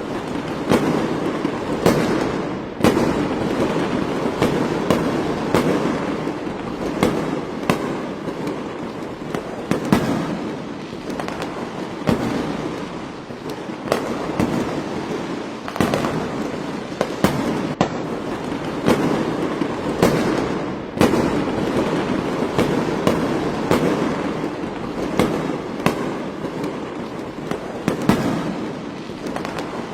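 Fireworks display going off continuously: many sharp bangs, about one every second or two, over a dense, unbroken din of further bursts.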